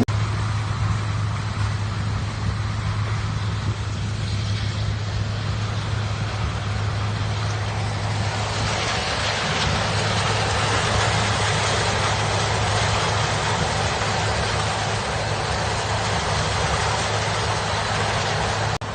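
Diesel engines of silage-harvesting machinery running steadily with a low, even hum. A broad rushing noise grows louder about eight seconds in.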